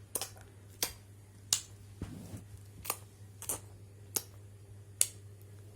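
A series of seven sharp clicks, unevenly spaced about half a second to a second apart, over a low steady hum.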